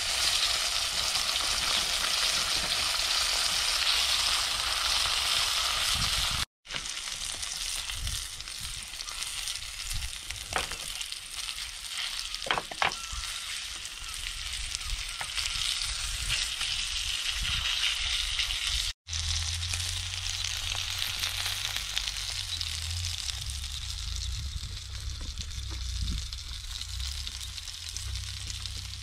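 Abalone (ormers) frying in a frying pan: a steady sizzle, loudest in the first few seconds, with a few faint clicks partway through. A low rumble joins in for the last third.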